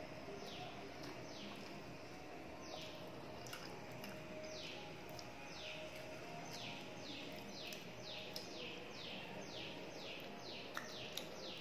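Small birds chirping: a run of short, downward-sliding chirps, coming quicker in the second half, over a faint steady background hiss. A couple of sharp clicks stand out near the end.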